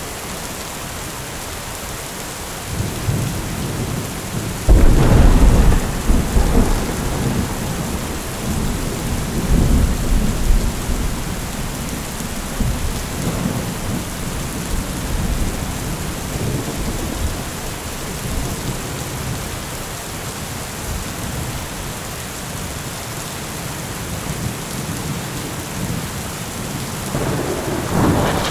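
Heavy rain falling steadily in a thunderstorm, with thunder: a loud clap about five seconds in that rumbles on for a couple of seconds, a second rumble a few seconds later, and another peal building near the end.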